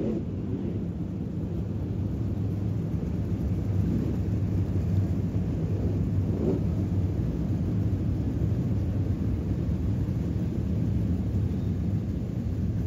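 Sprint car engines on the speedway blending into a steady low rumble, with no single car standing out.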